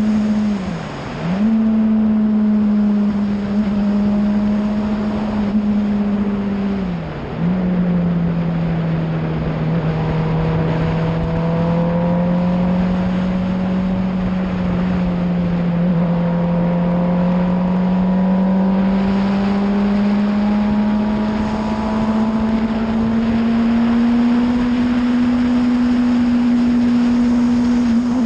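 Formula 1000 race car's motorcycle-derived 1000 cc engine at speed, heard from the cockpit: a loud, steady engine note that drops briefly in pitch and loudness twice, about a second in and about seven seconds in, then climbs slowly in pitch near the end.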